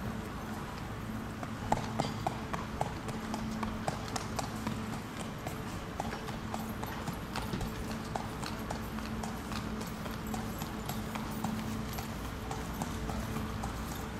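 A racehorse's hooves clip-clopping at a walk on a paved path: irregular sharp clops, several a second, loudest about two seconds in.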